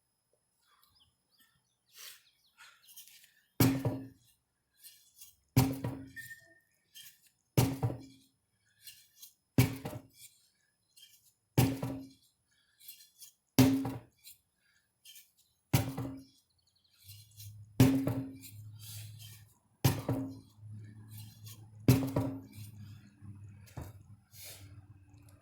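A 25 lb sledgehammer striking ten heavy blows, about one every two seconds, with lighter knocks in between. A steady low hum joins in during the last few blows.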